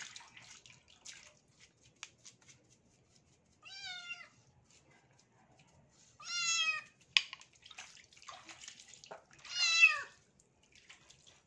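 Wet kitten meowing three times while being bathed, each call about half a second long, the last the loudest. Faint splashing and brush-scrubbing noises come between the calls.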